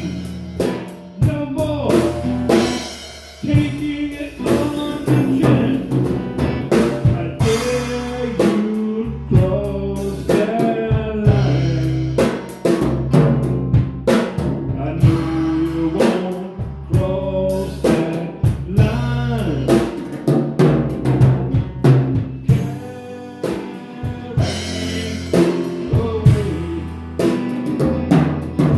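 A band plays live: a drum kit with bass drum and snare hits, an electric bass, and a guitar.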